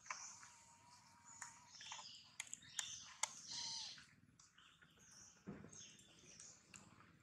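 Faint high-pitched chirps and squeaks from animals, with a few sharp clicks in the middle and a short rustle of leaf litter later on.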